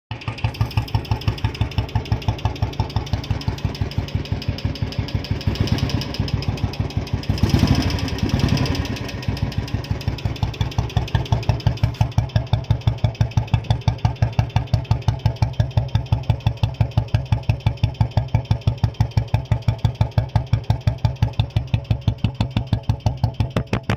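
Royal Enfield Bullet's single-cylinder four-stroke engine idling with its typical slow, even thump, several beats a second. About a third of the way in the throttle is blipped once, briefly raising the revs, before it settles back to the same thumping idle.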